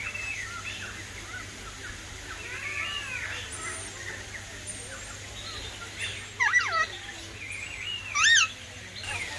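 Several aviary birds calling over one another: short arching whistles and chirps throughout, with two loud calls about six and a half and eight seconds in.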